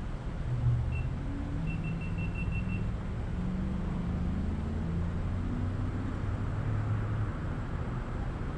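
Street traffic: vehicle engines running and pulling away, their pitch stepping up and down. A single short high beep about a second in, then a quick run of about six more.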